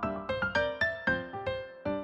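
Background music: a piano playing a melody of quick notes, about four a second.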